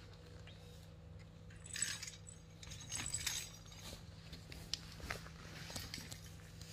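Small bell in a cat toy ball jingling as a kitten bats and rolls it, in short bursts of metallic jingling about two and three seconds in, with scattered light clicks after.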